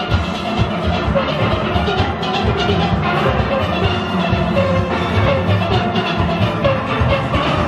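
Steel orchestra playing a soca tune: many steel pans together over a steady drum beat.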